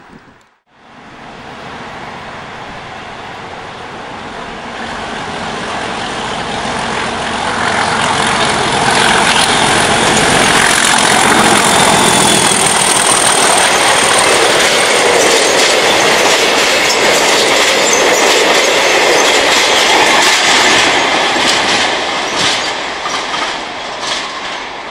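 Class 37 diesel locomotive passing close with its train: the English Electric engine builds over several seconds, is loudest for a long stretch midway with a high whistle over the top, then eases while the wheels clatter rhythmically over rail joints.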